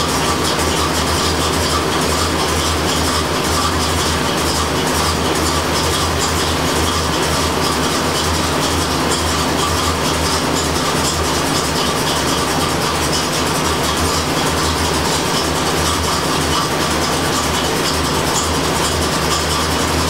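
A 1985 Corvette's 5.7-litre V8 idling steadily while its air conditioning is being recharged with R-12.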